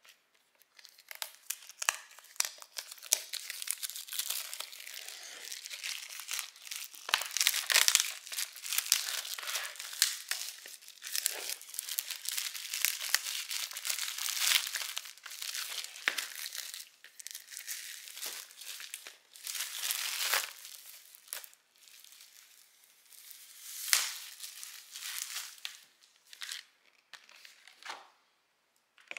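Clear plastic shrink-wrap being torn and peeled off a vinyl LP sleeve, crinkling and crackling. The crackling is dense for most of the time and thins out to a few last crackles near the end.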